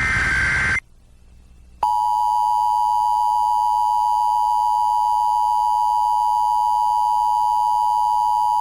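The last burst of an Emergency Alert System header, a short screechy data squawk, ends in under a second. About a second later the EAS two-tone attention signal starts and holds steady as one unbroken sustained tone, announcing the National Periodic Test.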